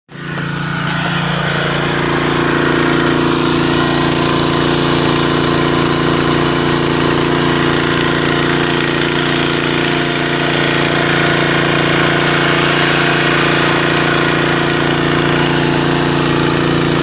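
Generator set engine running steadily on LPG fed from a gas cylinder in place of petrol, with a fast, even engine beat.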